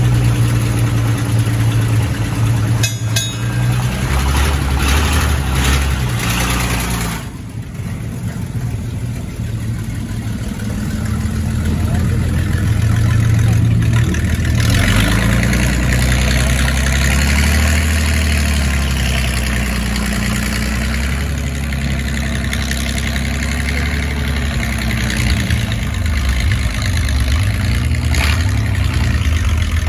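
Vintage fire engine's engine running at low speed as the truck rolls slowly by, a steady low note that rises and falls a little with the throttle.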